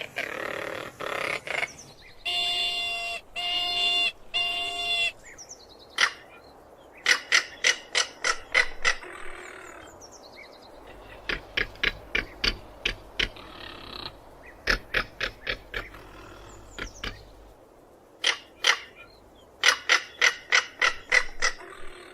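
Crested caracara calling: a few harsh calls, then three short pitched calls. These are followed by several runs of rapid, dry clicking rattles at about four or five clicks a second.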